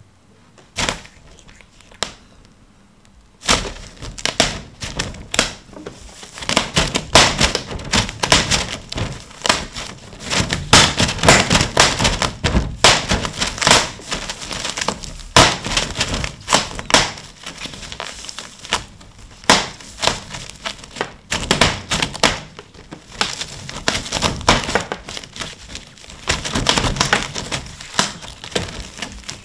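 Clear plastic film crinkling and crackling as a cat claws at it and pushes through it toward hanging tuna. A few separate clicks come first, then a dense, steady crackle starts about three and a half seconds in.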